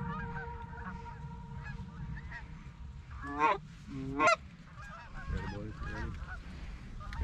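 A flock of Canada geese honking, many overlapping calls, with two loud honks about three and a half and four seconds in. Wind rumbles on the microphone throughout.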